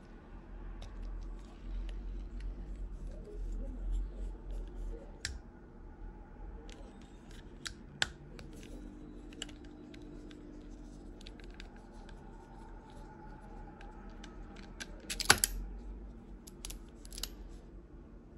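Small mechanical clicks and knocks from handling a Shimano Twin Power 4000FC spinning reel: the rotor turning, then the handle being unscrewed from the body. A louder cluster of clacks comes a few seconds before the end.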